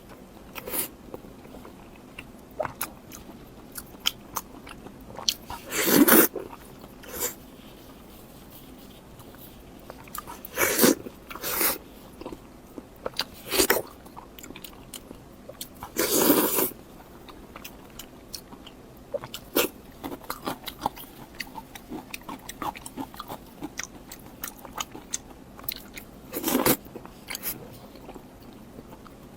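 Close-miked eating sounds: biting and chewing with many small wet mouth clicks, and every few seconds a louder noisy spell lasting up to a second.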